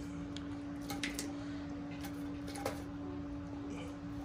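An Asian water monitor's jaws working a whole fish it is trying to swallow, making a few faint scattered clicks, over a steady hum.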